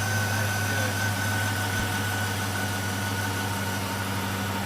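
2004 Chevy Tahoe V8 idling steadily with its newly installed K&N air intake: a low even hum with a steady high-pitched whine over it.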